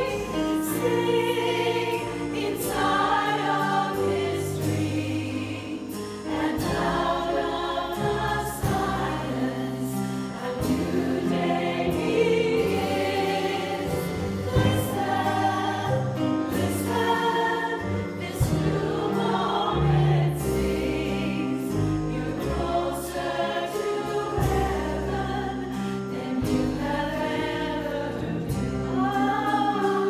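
A choir of mostly women's voices singing in harmony, with low bass notes from an upright bass underneath.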